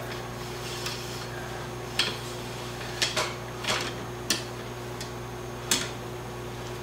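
Cleaning rod being run back and forth through a rifle barrel with a wet patch: scattered light clicks and taps of the rod against the bore guide and action, about seven in all, over a steady low hum.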